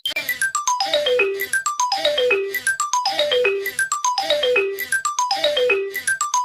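Electronic ringtone-like jingle: a quick run of stepped notes falling from high to low, repeated about six times at just over a second each.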